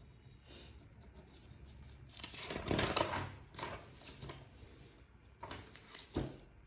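Rustling and handling noises in short bursts, the loudest about two to three seconds in, with a few softer rustles near the end.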